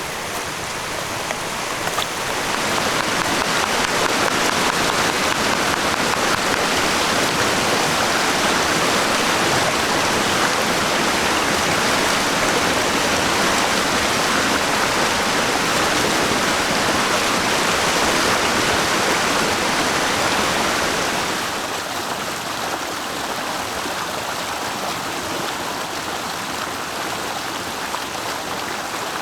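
Steady rushing noise of water with no distinct strikes or tones. It swells a couple of seconds in and drops back to a lower level about two-thirds of the way through.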